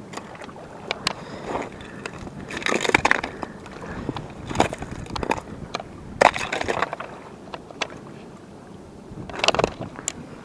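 Boots crunching and scraping over snow-covered rocks and gravel, with scattered sharp clicks and knocks of stone and gear and several louder crunches spread through.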